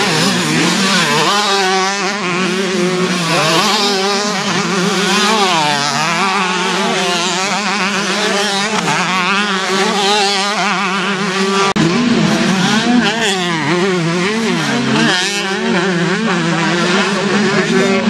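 Several two-stroke motocross bikes racing, their engines revving up and down over one another. The sound changes abruptly about two-thirds of the way through.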